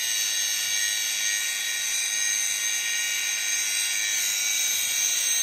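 Milwaukee angle grinder running at a steady speed with a high, multi-toned whine as its disc grinds into the 188 mm differential housing, clearancing a spot for the mounting nut. The grinder stops right at the end.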